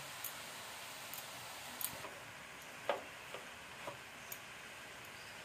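Wooden spatula stirring grated carrots frying in ghee in a non-stick pan: irregular light taps and scrapes against the pan, about one or two a second, over a faint steady hiss.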